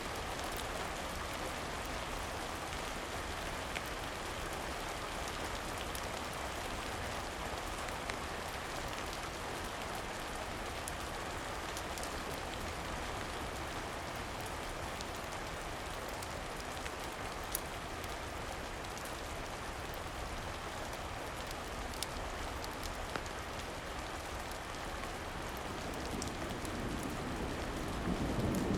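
Steady rain falling, with a few scattered sharp pops and a brief low swell of sound near the end.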